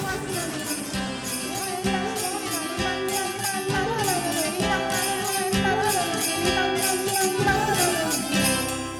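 Cartoon background music: a wavering melody over a steady beat of about one a second, with jingling percussion, fading out near the end.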